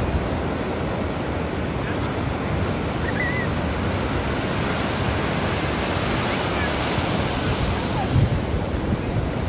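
Ocean surf breaking and washing up the shore in a steady rush, with wind buffeting the microphone in low gusts, the strongest about eight seconds in.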